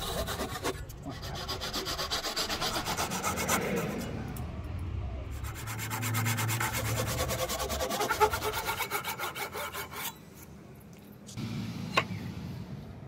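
Fine-toothed handsaw cutting kerfs into the top of a rosewood axe handle for a cross wedge, in quick, rhythmic back-and-forth strokes. The sawing stops about ten seconds in, and a single sharp knock follows near the end.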